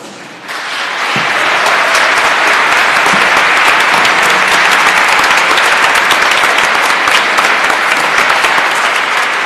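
Congregation applauding: a round of many hands clapping that swells over the first second, then holds steady and begins to thin near the end.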